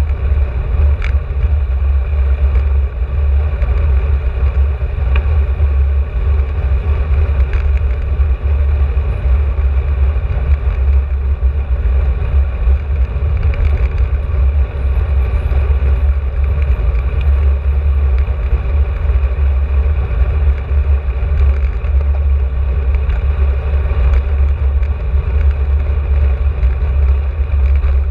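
Wind buffeting the microphone of a camera carried on a moving bicycle: a loud, steady low rumble that does not change, with a few faint ticks.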